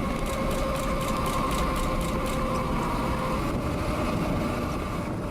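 Car driving: steady engine and road noise with a faint, even hum.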